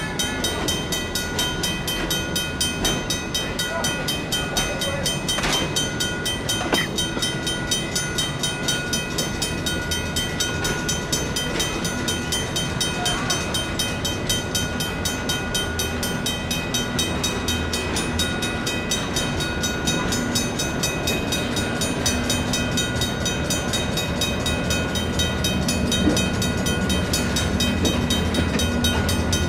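Griswold mechanical crossing bells ringing rapidly and continuously while passenger cars roll past with a low rumble. Near the end a deeper diesel engine drone grows louder as the locomotive comes by.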